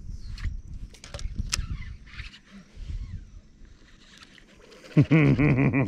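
Low rumbling with a few sharp clicks, then about five seconds in a man's voice breaks in with a loud, drawn-out vocal sound that wavers quickly up and down in pitch.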